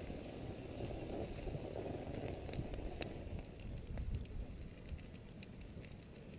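Creeping lava flow with scattered faint crackles and ticks, as the cooling crust cracks and the shrubs in its path burn, over a steady low rumble of wind on the microphone.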